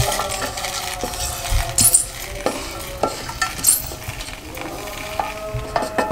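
Roasted whole spices (cumin, black peppercorns, cloves and the like) being poured and scraped from a pan into a steel grinder jar with a wooden slotted spatula: a running rattle of seeds falling into the metal jar, broken by many small clicks and scrapes.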